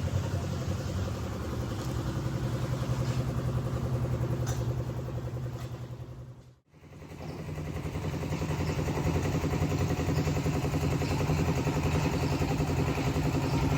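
An engine running steadily with a rapid even pulse. It fades out briefly a little past halfway and comes back.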